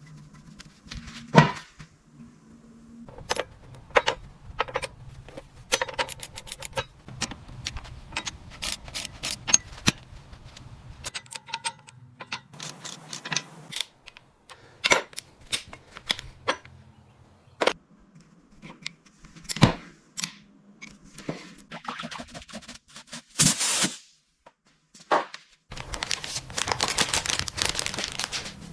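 Workshop tool sounds from car restoration work: a long run of sharp clicks, taps and knocks at an uneven pace, with a louder hit about a second and a half in and a steady hiss over the last few seconds.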